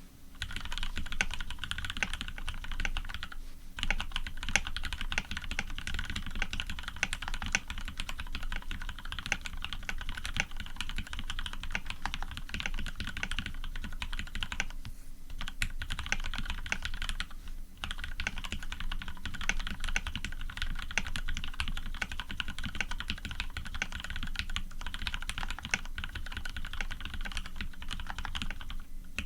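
Continuous fast typing on a custom mechanical keyboard with Krytox 105-lubed Cherry Retooled Black linear switches, an aluminium plate and PBT keycaps, with a few short pauses along the way.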